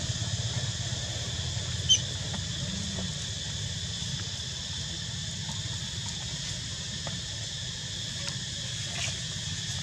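Steady high-pitched chorus of insects with a low rumble underneath. A short, sharp high squeak about two seconds in, and a fainter one near the end.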